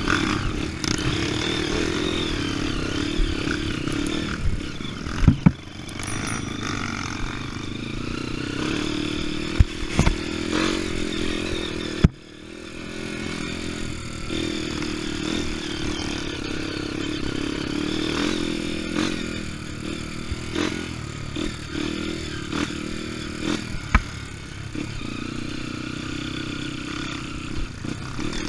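Trail motorcycle engine running while riding off-road, with clattering and several sharp knocks over rough ground.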